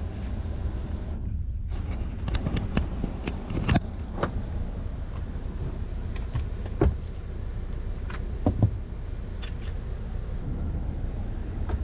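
Scattered light clicks and knocks of hand tools and parts being handled, including a cordless impact driver picked up, over a steady low rumble; the driver is not run.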